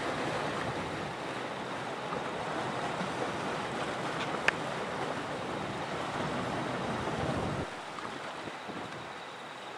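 Steady rushing noise of wind and surf at the seashore, with one sharp click about four and a half seconds in. The deeper rumble drops away suddenly after about eight seconds.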